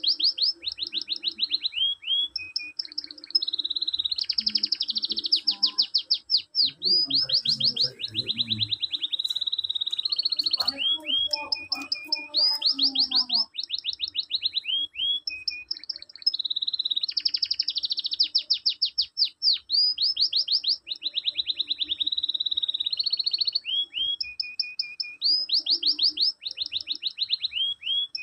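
Canary singing a long, continuous song of fast trills made of quickly repeated falling notes, switching between high and lower phrases. It is a master song (mesteran) played to stimulate other canaries to sing.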